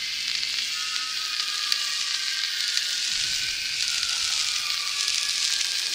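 Steady hissing noise with a faint drawn-out tone that slowly falls in pitch.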